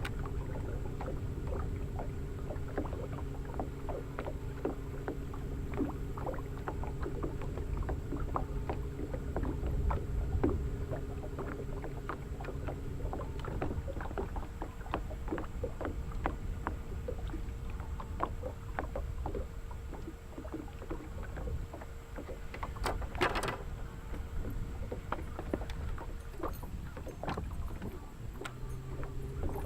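A boat's motor humming steadily with wind rumble on the microphone and a patter of small ticks and knocks. Part of the hum drops away about halfway through, and there is one louder knock or splash near the end.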